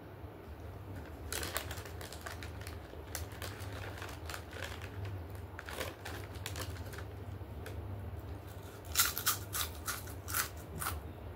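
White shell stone being bitten and chewed in the mouth: irregular crisp crunches, with a run of louder ones about nine to eleven seconds in, over a low steady hum.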